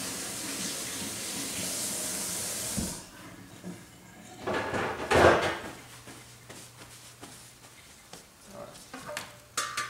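Kitchen tap running water into the sink to rinse out an empty sauce packet, cut off about three seconds in. A loud clatter follows around five seconds in, then a faint low steady hum.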